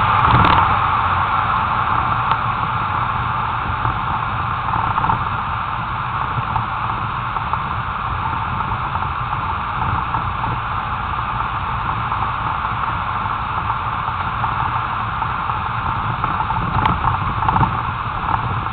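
Steady rushing road and wind noise with a low rumble from a car driving along, picked up by an action camera mounted low on the outside of the car.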